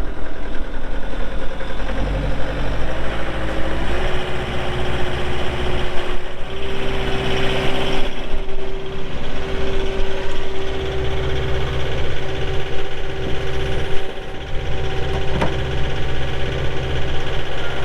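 Kubota SSV75 skid steer's diesel engine running just after start-up. About two seconds in, its speed steps up over a few seconds, then holds steady at the higher speed.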